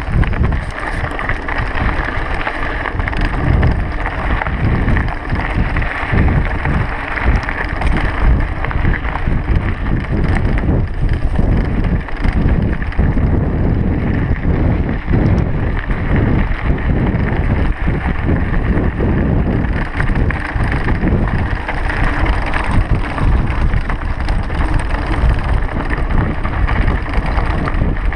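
Wind buffeting the microphone as a mountain bike descends a rocky gravel trail, with the tyres crunching over loose stones and the bike rattling over bumps throughout.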